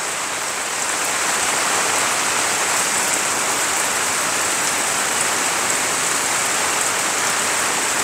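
Steady rain falling, an even hiss without a break.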